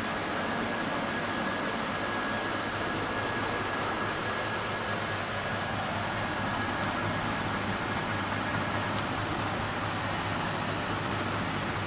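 24V 250W brushless geared hub motor spinning the front wheel freely at about full assist speed, a steady mechanical whir with a thin high whine that fades out about nine seconds in.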